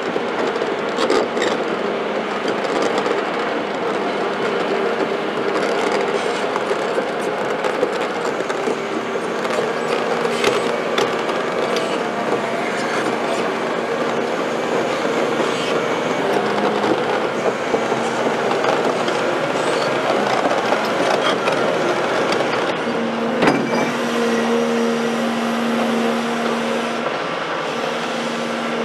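Caterpillar hydraulic excavator working: the diesel engine runs steadily with a held hum, and there are a few sharp metallic clanks, the loudest about three-quarters of the way through. The hum grows stronger for a few seconds near the end.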